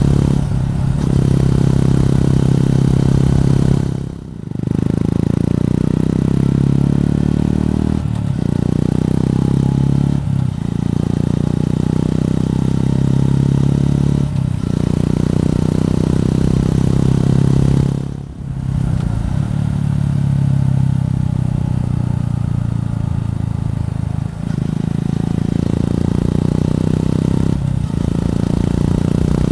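Suzuki Gixxer 150's single-cylinder four-stroke engine running under way, heard from the rider's seat. Its pitch rises and falls with the throttle, and the sound drops briefly several times.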